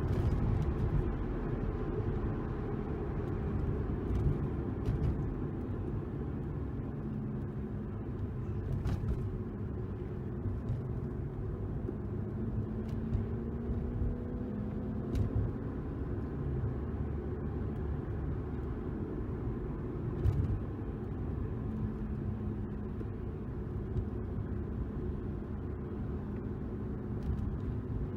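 BMW E92 320i running through a custom-made dual muffler exhaust: a steady low rumble whose engine note rises and falls in places.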